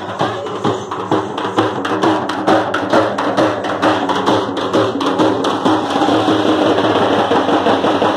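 Several dappu frame drums beaten with sticks in a fast, driving rhythm, many strokes a second.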